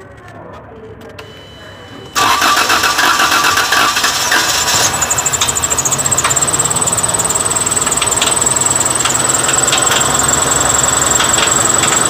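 HEMI V8 engine starting abruptly about two seconds in and then running, with a fast pulsing beat and a steady high-pitched whine that sets in about five seconds in. This is the strange engine noise that the owner asks about, which he suspects may come from the rocker arms.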